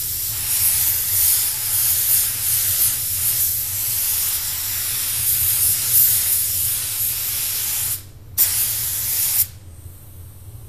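DeVilbiss TE20 automotive spray gun hissing steadily as it sprays paint. About eight seconds in the trigger is released and pulled again in a short burst and a second-long spray, then released for good, leaving a low hum.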